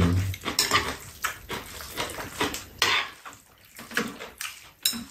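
Metal chopsticks clicking and scraping against bowls as cold mixed noodles are stirred and picked up, a string of short irregular clicks.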